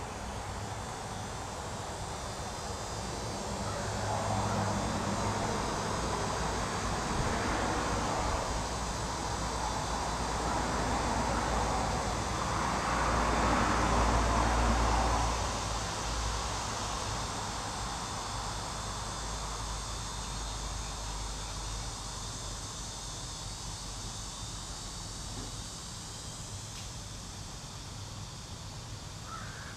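A distant engine passing by, swelling over several seconds to a peak about halfway through and then fading away, over a steady background of insects chirring.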